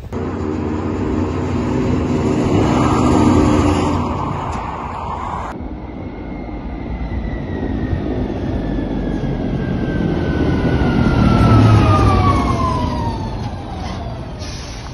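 Heavy truck or tractor engine running and driving, swelling in loudness. The sound changes abruptly about five seconds in, and a high whine then falls steadily in pitch as the vehicle gets louder toward the end.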